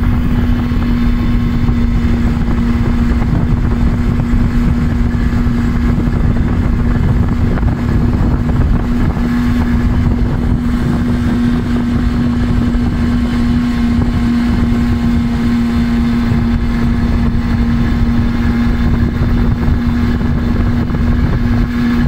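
Jawa Babetta 210 moped's small two-stroke single-cylinder engine running at a steady cruising speed, one even engine note over a low rumble.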